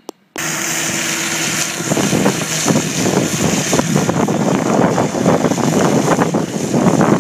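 John Deere tractor running under load, working a front-mounted mulcher and a Lemken Heliodor disc through a mustard cover crop, with a dense crackle over the engine. The sound starts abruptly about half a second in.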